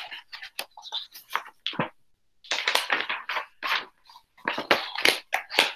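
Pages of a picture book being handled and turned: a run of short paper rustles and crinkles.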